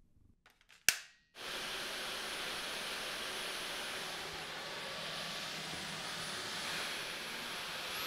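A single sharp click about a second in, then the Dyson V15s Detect Submarine cordless vacuum's motor starts and runs steadily: an even rushing noise with a faint high whine on top.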